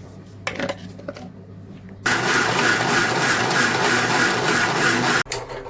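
Electric mixer grinder running in one burst of about three seconds, starting and stopping abruptly, after a few short clicks.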